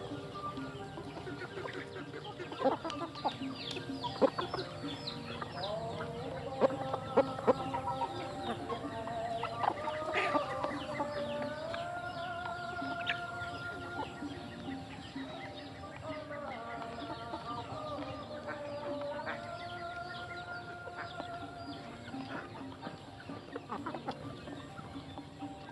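A flock of young chickens clucking and calling while they feed. There are a few loud, sharp taps in the first half, and two long drawn-out calls near the middle, each held at a steady pitch.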